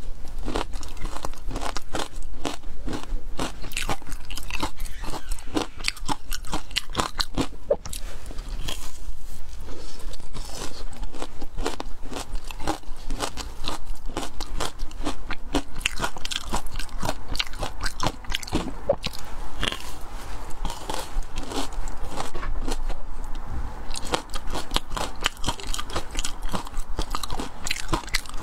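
Close-miked crunching and chewing of a frozen block of matcha ice: dense, irregular crackling crunches as the ice is bitten and ground between the teeth, with a brief lull about nine seconds in.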